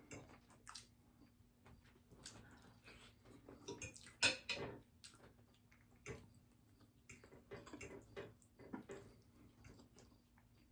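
Eating sounds at close range: chewing and biting into crispy fried fish, with scattered small clicks and crackles and one sharper, louder sound about four seconds in.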